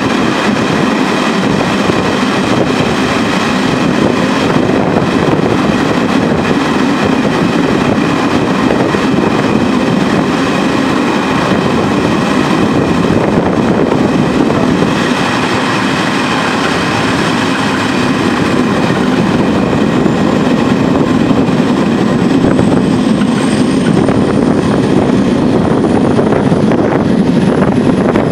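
Irish Rail 071 class diesel locomotive, an EMD 12-cylinder two-stroke, running under way, heard from an open train window: a steady loud drone of engine, wheels and rushing air. A thin high whine slowly rises over the last several seconds.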